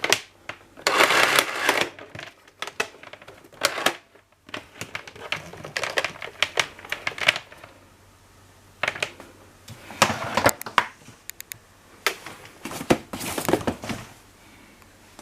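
Handling sounds of vacuum cleaner parts: irregular bursts of plastic clicks, knocks and rustling, with short pauses, stopping about fourteen seconds in. The vacuum's motor is not running.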